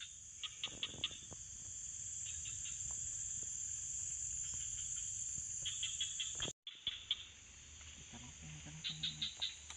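A steady, high-pitched chorus of insects chirring in the swamp vegetation. It drops out suddenly for a moment about six and a half seconds in.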